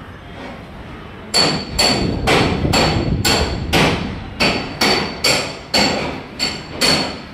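Hammer blows on metal, about a dozen sharp strikes at roughly two a second, starting about a second in. Each blow rings briefly, as is typical of hammering on aluminium formwork.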